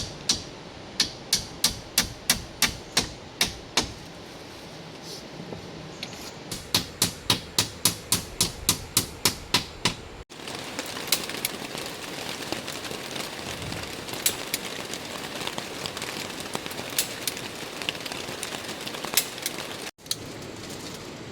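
Rapid, evenly spaced strikes of a tool on wood, about three a second, in two runs. Then a steady hiss with occasional lighter knocks.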